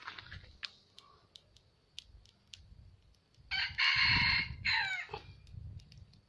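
A rooster crowing once, a call of about a second and a half starting past the middle, ending on a falling note.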